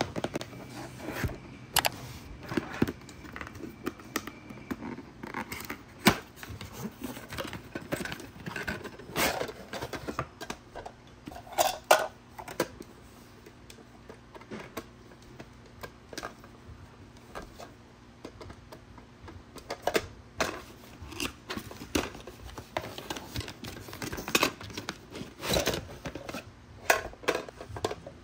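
A cardboard box being opened and small plastic car accessories, a black push-lid car trash bin among them, being unpacked and handled: irregular clicks, taps and scrapes of plastic and cardboard, a few of them sharper and louder.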